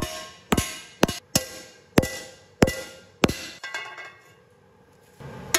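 Hand hammer striking the rim of a forged carbon-steel skillet held over a vise, shaping the pan. There are about seven sharp blows at roughly half-second intervals, each leaving the thin steel ringing. Then the blows stop and the last ring dies away.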